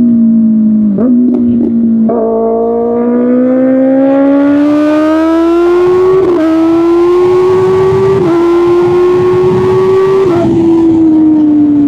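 Kawasaki Ninja ZX-6R's inline-four through an Arrow Pro Race exhaust, accelerating hard. Its pitch climbs steadily from about two seconds in, with brief breaks at the gear changes, then falls away as the throttle closes near the end. Wind rush grows as the bike gains speed.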